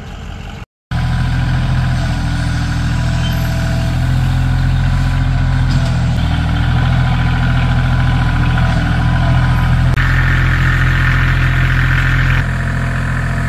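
Bobcat compact tractor's diesel engine running steadily while working a front loader to spread asphalt millings. A higher hiss joins for a couple of seconds about ten seconds in.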